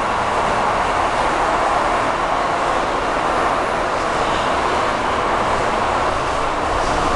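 Type-T metro car running, heard from inside the car: a steady, loud rushing noise of wheels and running gear.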